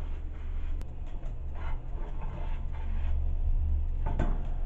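Slotted spatula scraping and shifting a bun in a frying pan in a few short strokes, with a click a little under a second in, over a steady low rumble.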